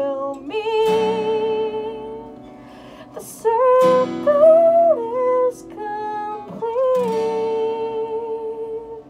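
Acoustic guitar strummed in slow chords under long held sung notes: the closing bars of a folk-punk song, with the sound dying away near the end.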